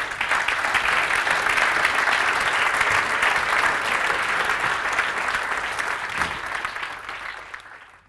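Audience applauding, a steady dense clatter of clapping that dies away near the end.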